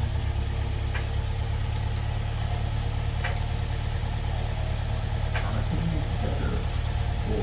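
2012 Toyota Tacoma pickup's engine idling steadily, with three short clicks about two seconds apart.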